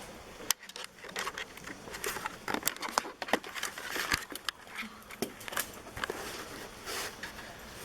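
Irregular small clicks and rustling, like objects being handled up close in a small room.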